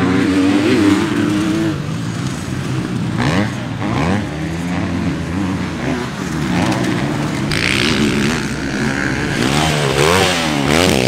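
Motocross bikes racing on a dirt track, their engines revving hard, with the pitch climbing and dropping again and again as the riders work the throttle through jumps and corners.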